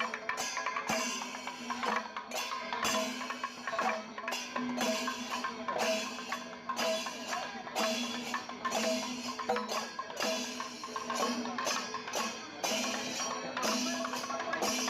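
Background music with a steady percussive beat and repeating pitched notes.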